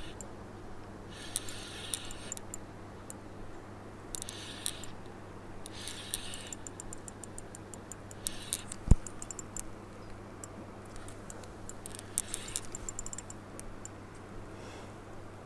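Spinning reel being cranked in short spurts during a lure retrieve: fine, rapid ticking from the reel's gearing, several times over, with one sharp louder click about nine seconds in.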